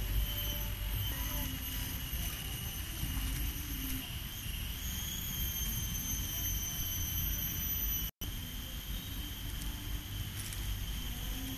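A steady high-pitched whine of several held tones over a low rumble, with a brief drop to silence about eight seconds in.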